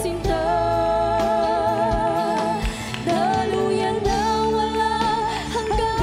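A mixed choir singing a slow, solemn Tagalog worship song in long held notes with vibrato; one phrase ends and the next begins about halfway through.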